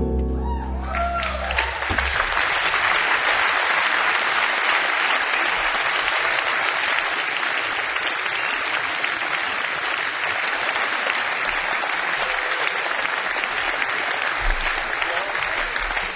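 Concert audience applauding steadily at the end of a jazz tune, the last low piano and bass chord dying away in the first second or so.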